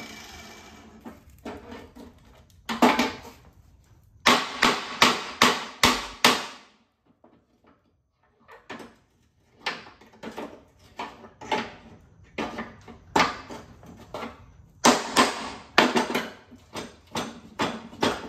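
Hand hammer striking metal on a lawn tractor mower deck, knocking at a stuck part. One sharp blow comes first, then a quick run of six, then after a pause of a few seconds, steady ringing blows at about two a second.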